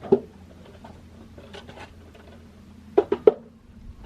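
Knocks and light scraping of plastic air intake parts being pulled loose and handled: one knock just after the start, then three quick knocks about three seconds in.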